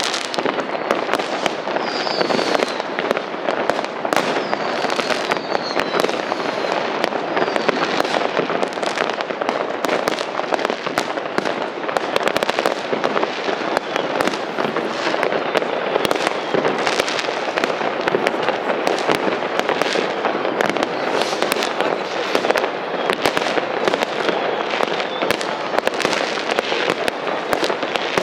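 A dense, unbroken barrage of New Year's Eve fireworks and firecrackers: many overlapping bangs and crackles with no pause. In the first few seconds a few short whistles fall in pitch.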